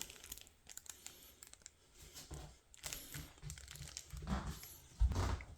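Handling noise: scattered faint clicks and crinkly rustling, with a louder low thump about five seconds in.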